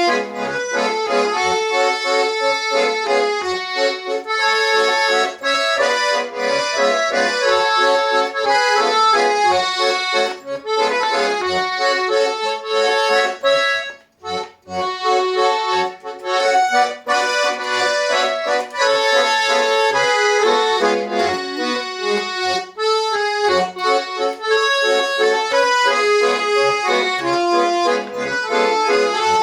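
Garmon button accordion playing a traditional-style tune, melody over held chords. It pauses for a moment about halfway through, then carries on.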